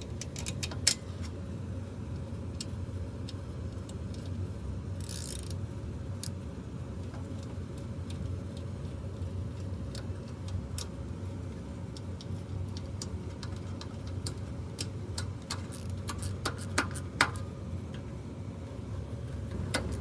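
Scattered small metallic clicks and ticks of a screwdriver and blower-motor parts being handled and fastened as a squirrel-cage blower is reassembled, with a short scrape about five seconds in and a few sharper clicks near the end, over a steady low hum.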